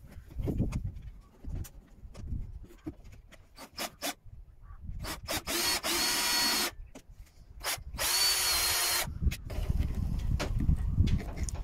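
Cordless drill with a small twist bit boring a guide hole through a cast resin wedge in two short runs, about five and eight seconds in, each a steady whine that rises in pitch as it spins up. Light knocks and handling come before the runs, and rubbing after them.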